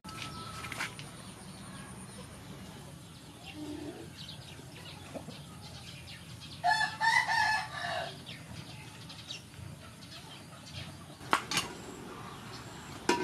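A rooster crows once, about seven seconds in, for roughly a second and a half. A few short sharp knocks follow near the end.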